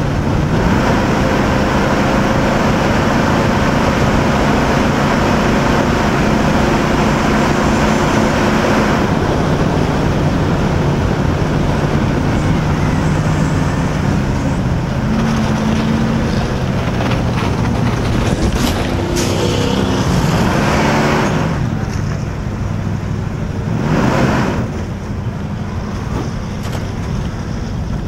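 Race vehicle's engine running hard under load, heard from its in-car camera, with its pitch shifting as it goes through the turns. About three-quarters of the way through it eases off and gets quieter, with one brief rise near the end.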